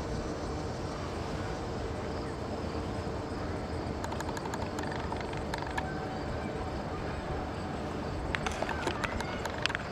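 Steady outdoor background noise with scattered short, sharp clicks, more of them near the end.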